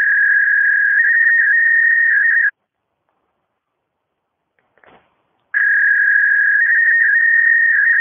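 Belgacom Belgafax fax machine sounding a high electronic tone, the fax dial tone, in two bursts of about two and a half seconds with a pause of about three seconds between. The pitch wavers between two close notes. A faint click comes just before the second burst.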